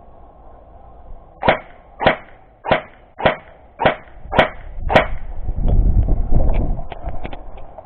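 Airsoft gun firing seven single shots in a steady rhythm, a little over half a second apart, followed by a low rumble of wind or handling noise on the microphone.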